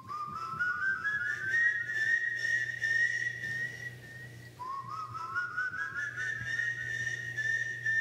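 A whistle climbing slowly upward note by note, in the manner of the rising whistle of El Silbón, the whistling ghost of Venezuelan legend. It starts over from the bottom about four and a half seconds in and climbs again to hold its top note. A faint low hum runs underneath.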